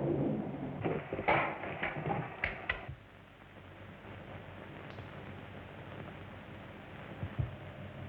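Dying rumble of a dynamite blast in a mine tunnel, with several sharp knocks in the first three seconds. Then only the steady hiss of an old film soundtrack, with one dull thump near the end.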